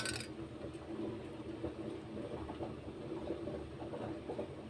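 A low, steady background rumble with a few faint, soft ticks as a steel spoon adds milk to a steel bowl of cut brinjal pieces in water.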